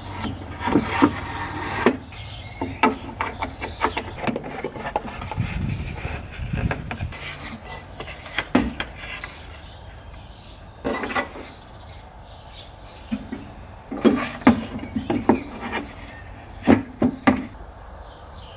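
Wooden boards and a jigsaw being handled on a wooden work table: irregular knocks and clatter in clusters, with sharper knocks about eleven seconds in and again in the last few seconds. The jigsaw motor is not running.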